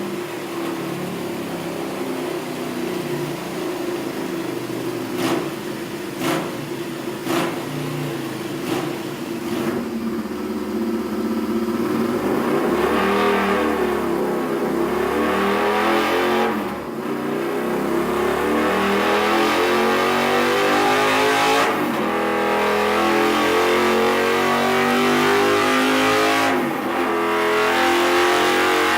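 Custom Honda CX500's V-twin engine, breathing through Murray's carbs and a custom 2-1-2 exhaust, idling with a few quick throttle blips. After about ten seconds it pulls up through the revs in long rising runs, with the revs dropping briefly three times, as on a dyno run.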